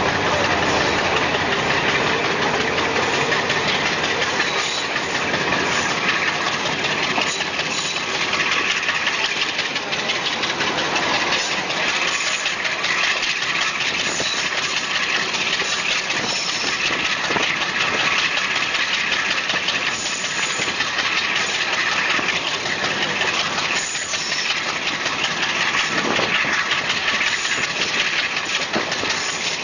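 WDM-7 diesel locomotive chugging under load as it hauls a passenger train away from a stop, heard from the coach right behind it, over the steady rumble of wheels on the rails.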